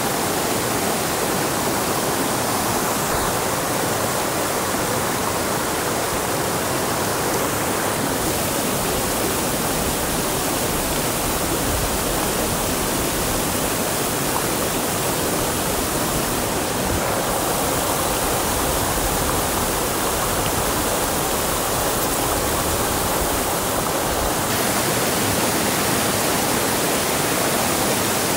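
Steady rushing noise of water, even and unbroken, with small shifts in its tone a few times along the way.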